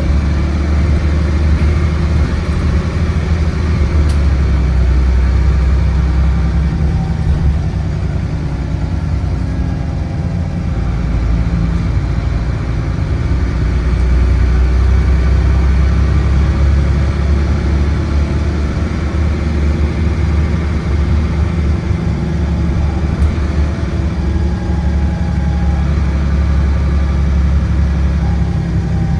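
Dennis Trident double-decker bus's diesel engine and Voith DIWA automatic gearbox, heard from inside the bus while it drives along. The engine note dips around ten seconds in, then climbs and grows louder again.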